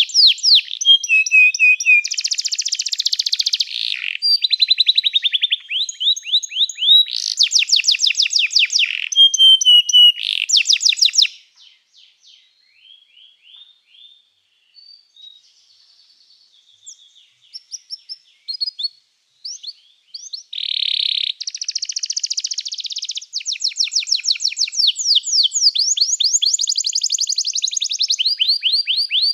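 Domestic canary singing: long, fast trills and rolls in rapid phrases. The song breaks off about eleven seconds in to a few soft, scattered notes, then starts again loudly about twenty seconds in.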